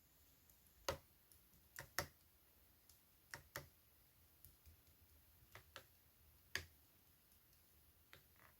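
Slime being handled, giving scattered short, sharp clicks and pops, several of them in quick pairs, against an otherwise near-silent room.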